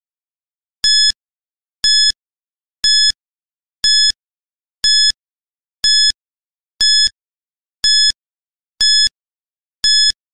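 Quiz countdown-timer sound effect: ten short, high-pitched electronic beeps, one each second, with silence between them.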